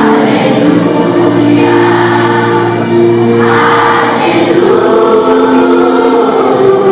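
School choir singing a piece from a Christmas cantata, many voices holding long notes together.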